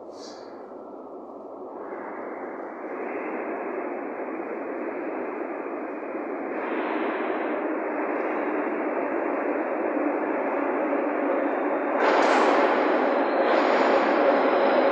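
Metro train approaching through the tunnel. Its rumble builds steadily and jumps louder about twelve seconds in as the train reaches the platform.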